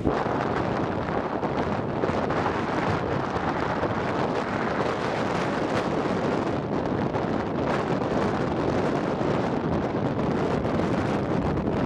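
Strong wind buffeting the microphone, a steady dense rush with no breaks.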